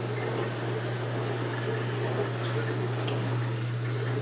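Steady low hum with a light hiss, and a few faint clicks.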